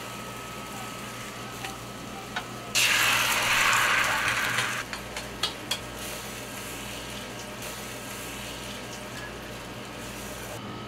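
Beaten egg frying in a hot oiled rectangular tamagoyaki pan over a gas flame: a loud sizzle starts suddenly about three seconds in and dies down after about two seconds, followed by a few sharp taps.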